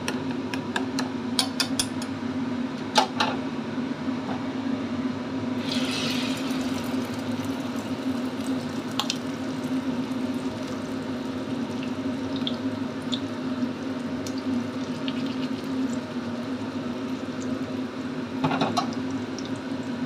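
Beaten egg with chopped spring onions is poured into hot oil in a frying pan about six seconds in, setting off a loud sizzle. The sizzle settles into steady frying with scattered spits and pops. A few sharp oil spits come before it, and a steady low hum runs underneath throughout.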